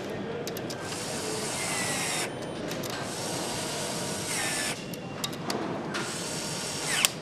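Assembly-line din with power tools running in bursts: two runs of about a second and a half each, then shorter bursts, and a sharp click near the end.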